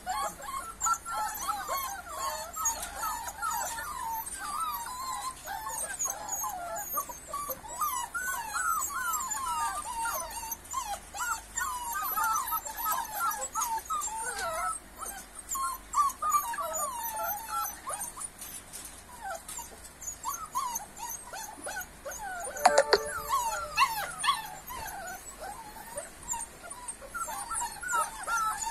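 A litter of Rottweiler puppies whining and whimpering together, with many short, high cries overlapping the whole time. One louder yelp comes about three-quarters of the way through.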